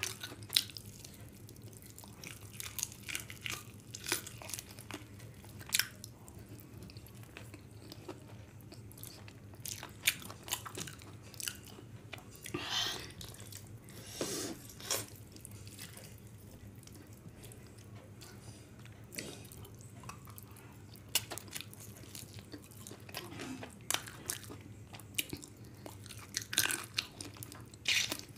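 Close-miked sounds of a person eating chicken curry and rice by hand: irregular chewing, biting and crunching, with sharp mouth clicks scattered throughout.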